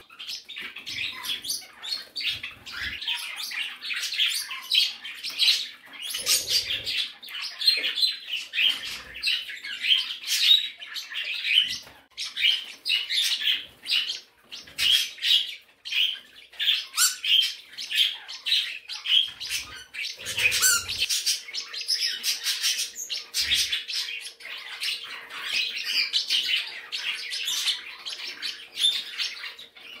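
A room of small pet parrots, budgies among them, chirping and chattering continuously in many overlapping high calls, with a few soft thumps.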